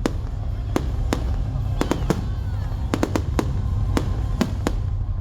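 Fireworks display: about a dozen sharp bangs of bursting shells at irregular intervals, some in quick clusters, over a continuous low rumble.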